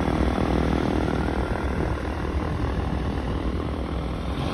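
Steady low rumble with an engine drone whose pitched hum fades out about a second in.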